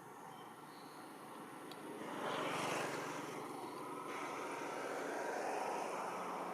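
Motor noise of a passing vehicle: it swells about two seconds in and stays up to the end.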